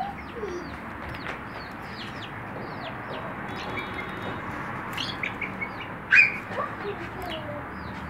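Several young chicks cheeping over and over in short, high, downward-falling peeps, with one louder call about six seconds in.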